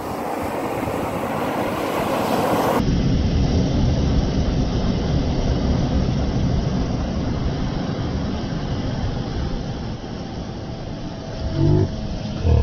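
Surf washing in and foaming over sand. About three seconds in the audio turns slowed-down with the slow-motion picture, so the wash becomes a deep, steady rumble, with two brief, louder low sounds near the end.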